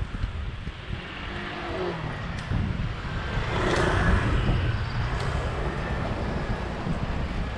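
Wind buffeting the microphone of a moving bicycle, with a motor vehicle passing; the vehicle noise swells to its loudest about four seconds in and then fades a little.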